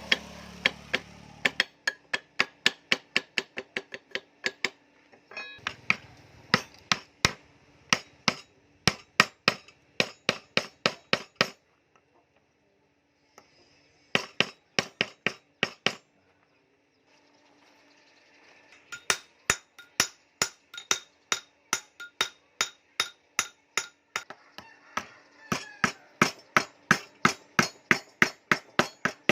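Blacksmith's hand hammer striking steel in steady rhythmic blows, about two a second, each with a short metallic ring. Three runs of strikes, with brief pauses about twelve and sixteen seconds in.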